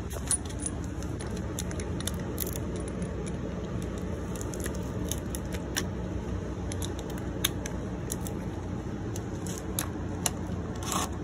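Scattered light clicks and taps of small metal parts and hand tools being handled, over a steady low background rumble, with a brief cluster of louder clicks near the end.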